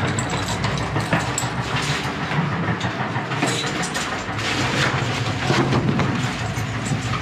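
Steady vehicle rumble with scattered clicks and rattles.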